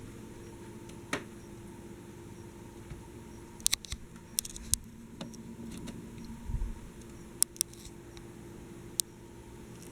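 Hunter Passport ceiling fan running with a steady low hum, with a handful of sharp clicks scattered through it and a low thump about six and a half seconds in.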